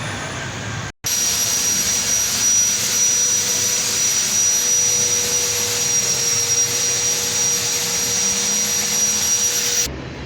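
Steady, loud hiss of rushing air with a high, unchanging whistle, breaking off abruptly near the end.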